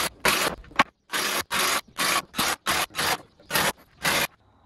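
Timber boards scraping as they are slid and worked on a wooden truck deck: a rapid run of about ten short, harsh scrapes, with a brief pause about a second in.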